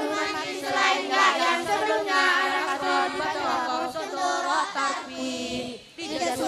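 A group of boys' voices chanting together in unison into microphones, unaccompanied and sing-song, with a brief pause near the end.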